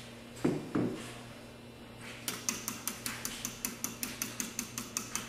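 Metal utensil beating eggs and olive oil in a small stainless-steel bowl, clicking against the bowl about six times a second, starting about two seconds in. Before that, two thumps as the glass olive oil bottle is set down on the counter.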